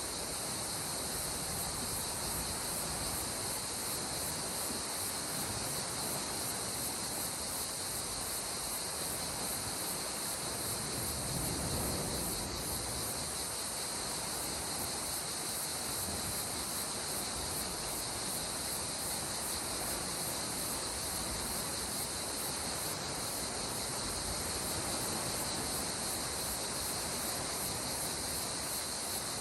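Steady, high-pitched insect chorus over the soft, continuous wash of calm sea water, with one gentle wave swelling about twelve seconds in.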